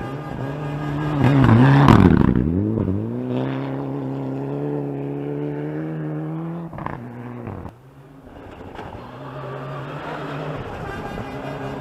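Rally car engines on a gravel special stage. One car comes up loud and passes about two seconds in, its engine note dipping and then holding steady as it carries on at speed. After an abrupt break about eight seconds in, the next car's engine is heard approaching, growing louder.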